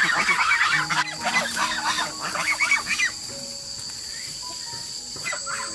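Chickens clucking busily, stopping about three seconds in, over a steady high-pitched insect drone.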